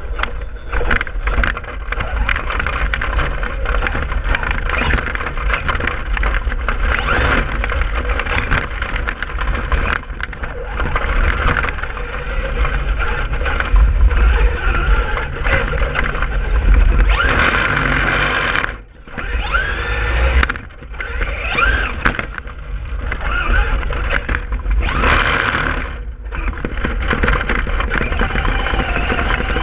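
Traxxas Stampede RC truck driving over a gritty road, heard on board: a steady low rumble and crunch of the tyres on loose gravel, with the motor's whine rising and falling as the throttle changes. The noise cuts out briefly a couple of times near the middle as the truck lets off.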